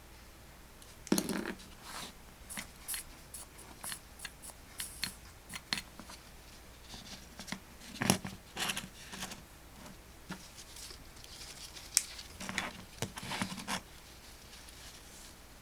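Hand tools and small parts being handled on a workbench: a string of sharp clicks, snips and scrapes, with the sharpest about a second in, around eight seconds and around twelve seconds.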